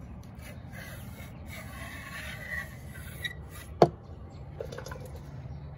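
Stainless steel water pump housing of a Mercury 90 hp four-stroke outboard being worked up and off the driveshaft by hand: metal scraping and rubbing about two seconds in, then one sharp click just before four seconds in as the housing comes off the shaft.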